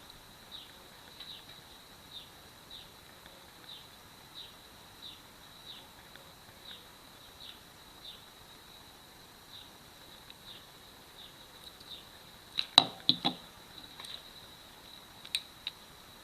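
Short high chirps repeating about one and a half times a second over a faint steady high tone, an animal calling in the background. About three-quarters of the way through comes a quick cluster of loud clicks and knocks, followed by two single clicks.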